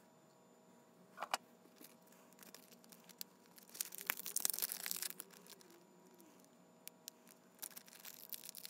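Faint crinkling and rustling from something being handled on the bench, loudest about four to five seconds in, with a light click near the start and a few ticks near the end.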